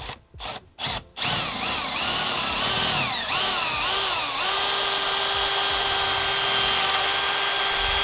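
Milwaukee Fuel cordless drill drilling out a stainless steel rivet on an Airstream door's deadbolt assembly. Three short trigger blips come first, then a continuous motor whine that rises and falls in pitch before settling to a steady whine about four and a half seconds in.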